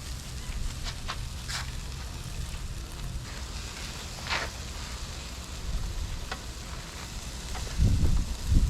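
Ribeye and deer steaks sizzling on a small charcoal grill, with scattered sharp pops and one longer hiss about four seconds in. A low rumble of wind on the microphone runs underneath and grows louder near the end.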